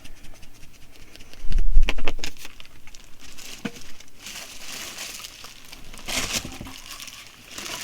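Plastic packaging and clothing being handled, crinkling and rustling in irregular bursts. A heavy low thump with a few clicks comes about one and a half seconds in and is the loudest sound.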